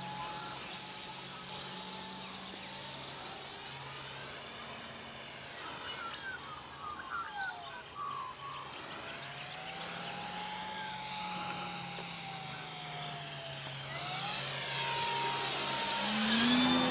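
Electric motor and propeller of a Hangar 9 RV8 radio-controlled model plane whining in flight, the pitch gliding up and down as it passes back and forth. Near the end it comes close overhead and gets clearly louder, with a rush of propeller noise.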